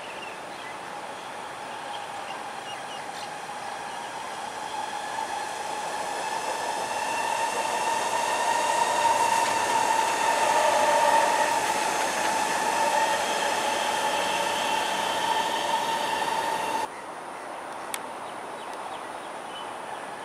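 SMRT North South Line electric metro train running past on an elevated track, with a steady high whine and overtones over its running noise. The noise grows to its loudest about ten seconds in, then cuts off suddenly near the end to a quieter, more distant train sound.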